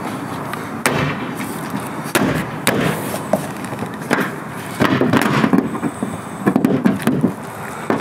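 Irregular knocks and clatters of a wooden mounting board and its threaded steel rods being shifted and pressed against a car's body panel, the rods being worked into the mounting holes.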